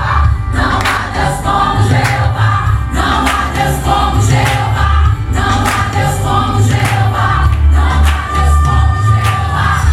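Gospel worship music: a choir singing over a band with strong bass and a regular drum beat.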